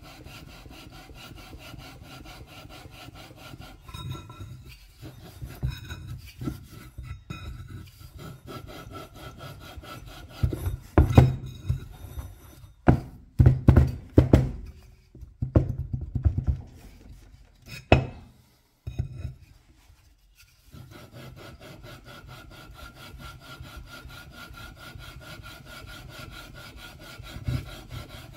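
IMZ Ural M67 crankshaft taper being twisted back and forth by hand inside the flywheel's taper: a steady gritty metal-on-metal rubbing as the two tapers are lapped together. Around the middle the rubbing breaks into separate strokes with several louder knocks, then stops briefly before the steady rubbing resumes.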